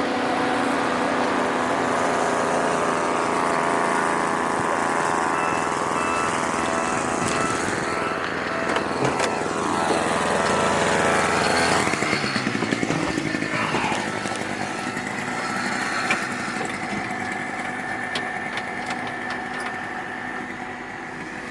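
An engine running steadily, its pitch sliding up and down a little near the middle and its sound changing about halfway through.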